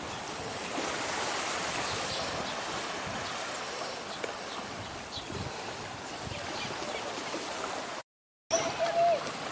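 Small waves of a calm bay washing and lapping on a sandy beach: a steady wash of water. About eight seconds in, the sound cuts out completely for half a second.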